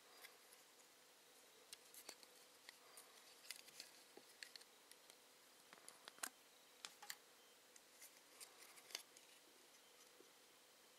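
Faint, scattered clicks and taps of a small hard-plastic toy belt buckle being handled and turned over in the fingers, with a fingernail working at its battery cover.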